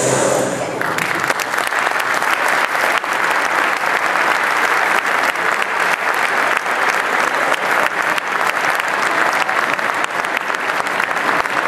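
Audience applauding, a dense steady clapping; the closing music dies away about a second in.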